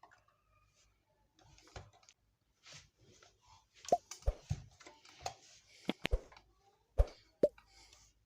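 Irregular sharp clicks and knocks of hard objects being handled, few at first and coming more often and louder from about halfway through.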